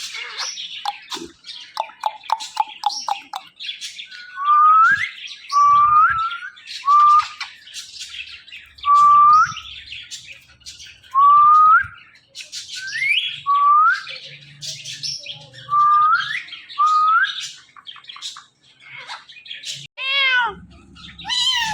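Pet parrot calling: a quick run of short chirps, then about a dozen rising whistled notes, roughly one a second, with chirps between them, and a fast string of notes near the end.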